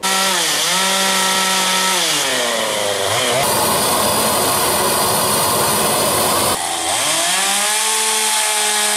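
Gasoline chainsaw running at high revs, its pitch dipping and then falling as it bogs into the cut. A steady rushing roar from a propane torch follows for about three seconds, then the chainsaw returns, revving up and holding steady near the end.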